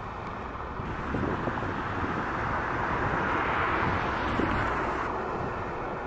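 Steady low traffic rumble, with a passing vehicle swelling up over a couple of seconds and fading away.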